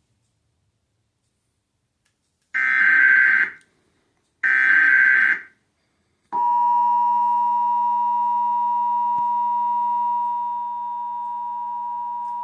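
Emergency Alert System test: two roughly one-second bursts of SAME header data, heard as a buzzing screech, followed by the steady two-tone EAS attention signal. The attention signal drops slightly in level partway through.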